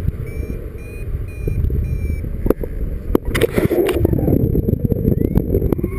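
Wind buffeting the microphone of a camera on a flying paraglider, swelling louder in a gust midway. Over it a paragliding variometer beeps about three times a second for the first two seconds, its climb signal that the glider is rising in lift, and its tone slides up again near the end.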